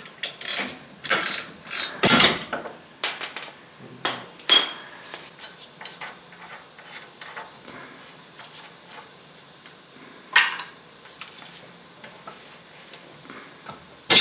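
Metal clicks, scrapes and clunks as the ball joint nuts come off and the steering knuckle is worked free of the ball joints on a truck's front suspension. The clicks are thick for the first few seconds, then sparse, and one sharp metal clank comes at the very end.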